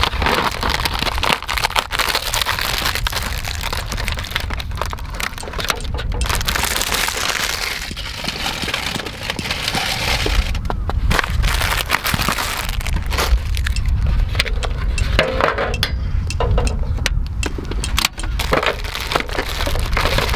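Plastic film and packaging crinkling and rustling as an aluminium foil tray of nabeyaki udon is unwrapped, with sharp crackles and light clinks of the thin foil tray; near the end the udon is slid out of its plastic bag into the tray. A steady low rumble runs underneath.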